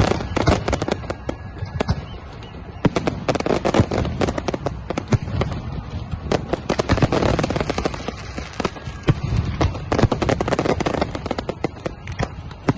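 Fireworks going off nonstop in rapid, overlapping bangs and crackles, with louder barrages about three, seven and ten seconds in.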